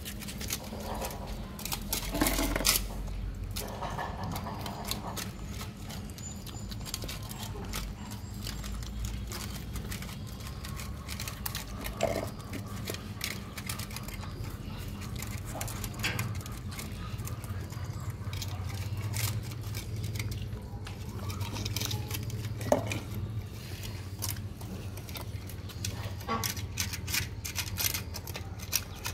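Puppies suckling at their mother's teats: a dense run of small wet sucking and smacking clicks, with a few brief pitched squeaks among them, over a low steady hum.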